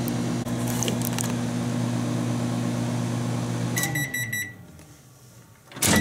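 Kitchen microwave oven running with a steady hum, then shutting off about four seconds in with a rapid run of short high beeps that signal the end of the heating cycle. A loud clack comes near the end.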